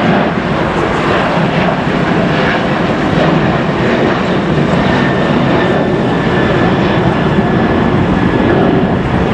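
Boeing 737 jet engines at takeoff power as the airliner climbs out: a loud, steady roar, with a thin high whine showing through for a few seconds in the middle.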